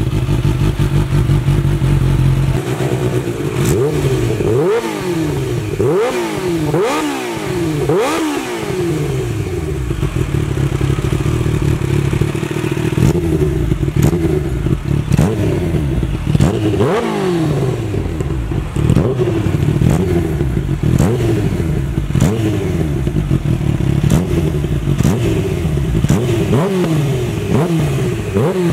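Kawasaki H2's supercharged inline-four running through a RaceFit carbon and titanium slip-on exhaust on the stationary bike. It idles evenly, then about two and a half seconds in it is revved again and again in quick blips, the revs shooting up and dropping straight back each time.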